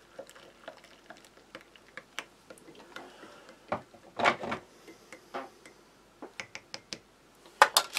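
Plastic spork stirring tea in a ceramic mug, clinking against the sides in light, irregular clicks, with a few louder knocks about four to five seconds in.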